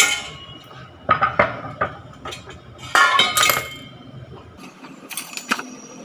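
Stainless steel kitchenware clattering: a steel pan and a large steel bowl being handled and set down on the counter, in a few separate clinks and knocks, the loudest about three seconds in.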